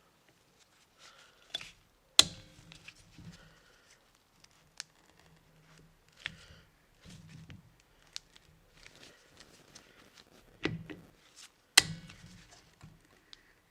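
Metal hand tools clicking and knocking against a brake caliper while a piston is worked out of it for a rebuild, with two sharp loud clacks, about two seconds in and near the end, among lighter scattered clicks.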